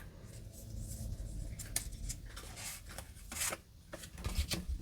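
Pokémon booster pack being opened and its cards handled: soft rustling and rubbing of foil wrapper and card, with a few light clicks.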